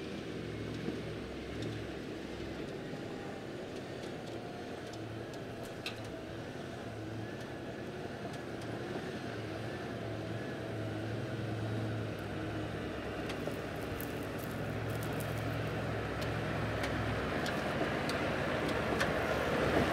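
A four-wheel drive vehicle driving along a track: a steady low engine drone with a few faint clicks and knocks, growing louder over the last few seconds.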